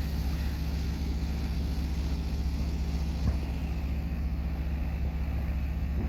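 A steady low hum runs throughout, with one distant firework boom about halfway through.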